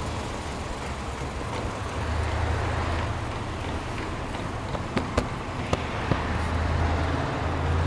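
Subaru Impreza Anesis 2.0i-S flat-four boxer engine idling steadily, heard at the exhaust outlet as a low, even exhaust hum. A few sharp clicks about five to six seconds in.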